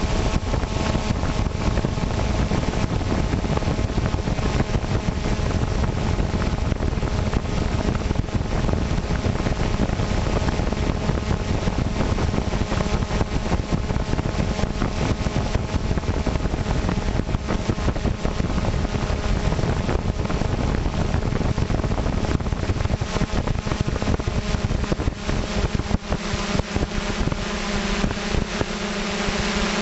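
Wind buffeting the microphone of the camera on a flying drone, over the steady hum of its motors and propellers. About 26 seconds in, the wind rumble drops and the motor hum comes through more clearly.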